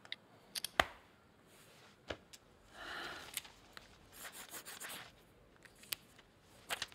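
Ballpoint pen scratching across a small paper card as a line is struck through, in two short scratchy strokes about three and four to five seconds in. A few sharp clicks and taps come before and after, the loudest about a second in.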